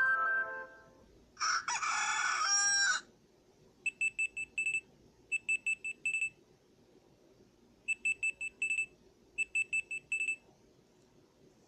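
Alarm tones from an Amazon Fire device: a melodic chime fades out, then a recorded rooster crows for about a second and a half, then a digital alarm-clock beep sounds in four short bursts of rapid high beeps.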